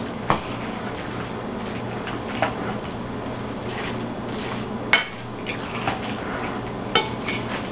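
A metal serving spoon clinks against a glass mixing bowl as dressed chicken salad is stirred, with about half a dozen sharp knocks at uneven intervals over a steady low hum.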